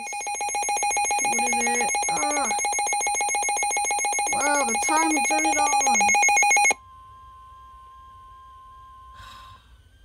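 Weather alert radio going off for a severe thunderstorm warning: a loud, rapidly pulsing alarm, with a voice heard twice over it. About seven seconds in the alarm cuts off, and the broadcast's steady warning tone plays more quietly for about three seconds before the announcement begins.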